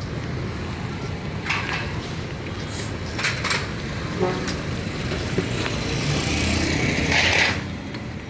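Road traffic: a steady low rumble, with a louder hissing swell from about six seconds in that drops off suddenly near the end.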